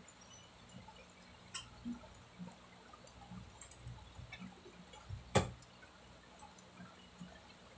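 Faint scattered ticks and small clicks from handling a cotton pad while it is wiped over the face, with one sharper click about five seconds in, over a faint steady low hum.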